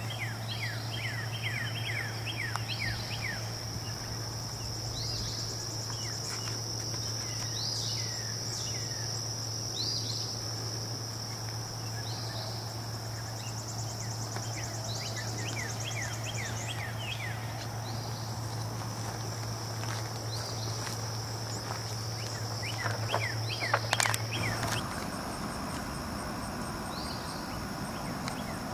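Outdoor summer ambience: a steady high-pitched insect buzz with many short, falling bird chirps over a low, steady hum. A few sharp knocks come near the end, and the hum stops shortly after.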